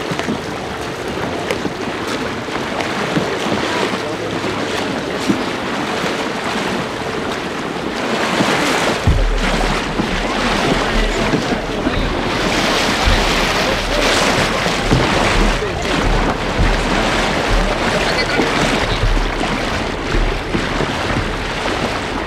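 Kayak paddles splashing and water rushing along the hulls of racing kayaks, a steady wash of water noise broken by irregular strokes. From about nine seconds in, wind rumbles on the microphone.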